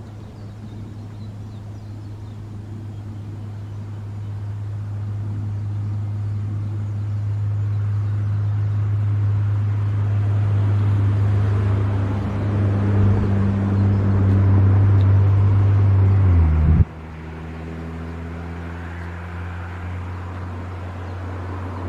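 Ship's diesel engine running with a steady low hum that grows louder for about sixteen seconds, as the vessel works the ship off the berth. It then drops suddenly in loudness and slides down in pitch, as if throttled back, and runs on more quietly.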